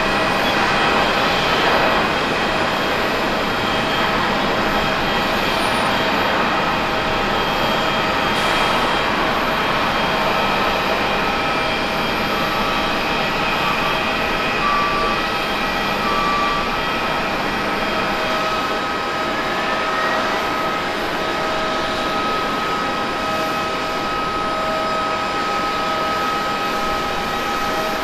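Airliner turbofan engines on the runway: a steady rush of jet noise with several high steady whines. A short rising whine comes about two-thirds of the way through.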